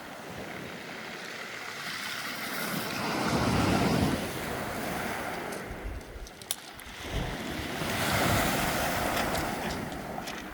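Moderate Black Sea surf breaking on the beach: the wash swells up twice, about four and eight seconds in, and falls back between.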